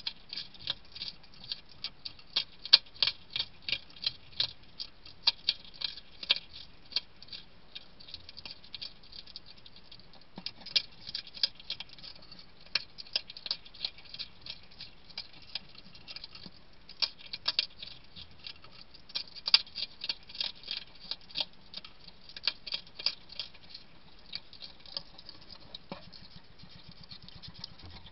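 European hedgehog eating noisily from a ceramic bowl: quick, crisp chewing and smacking clicks in bursts, with brief pauses between them.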